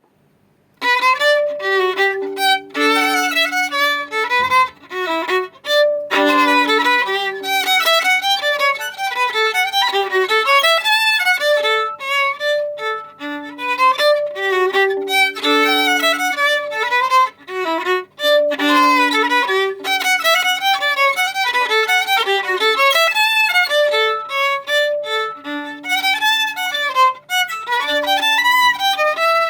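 Solo violin played in practice: a continuous run of bowed notes that starts about a second in, with brief breaks between phrases.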